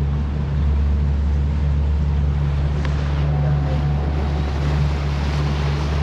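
Small boat's outboard motor running steadily, with wind noise on the microphone.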